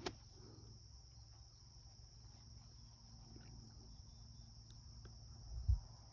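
Faint, steady high-pitched chirring of crickets, with a short click just after the start and a low thump near the end.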